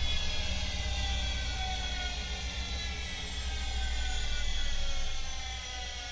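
Bosch Maxx 7 washing machine drum slowing down at the end of its final spin: a whine of several tones falling steadily in pitch over a low hum, getting quieter about five and a half seconds in. The uploader calls the noise of this final spin motor bearing noise.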